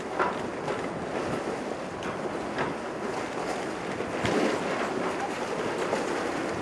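Lake freighter's steel hull pushing through harbor ice: a steady rushing grind broken by irregular cracks and crunches, with wind on the microphone.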